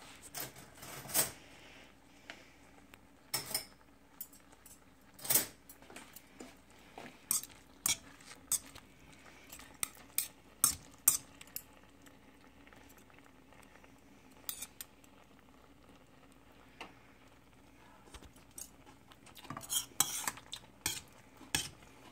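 Metal spoon clinking and scraping against a stainless steel pan while stirring food: irregular sharp clinks, sparser through the middle and coming in a quick cluster near the end.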